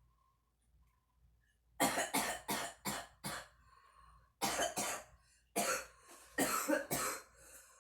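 A woman coughing after inhaling smoke: a fit of short, repeated coughs starting about two seconds in, in two bouts with a brief pause between them.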